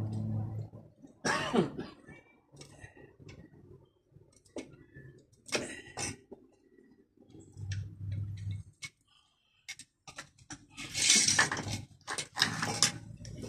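Scattered clinks, clicks and short bursts of clatter from metal tools and parts being handled, loudest about a second and a half in, around six seconds in, and again near the end, with a faint low hum in between.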